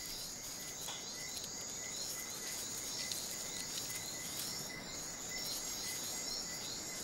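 Insects chirping in a natural chorus: a short chirp repeating evenly about three times a second over a steady high-pitched drone and faint hiss.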